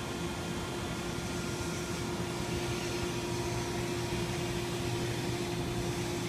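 Steady electrical machinery hum in a factory, with a constant mid-pitched tone over a low drone.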